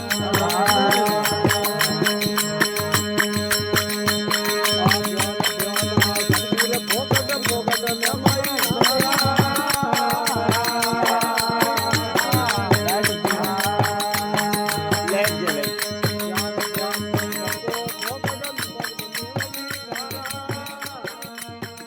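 Rajasthani desi bhajan music: a steady drum beat under a held drone and a wavering melody line, fading out near the end.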